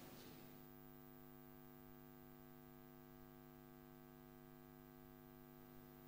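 Near silence with a faint, steady electrical hum made of several even tones.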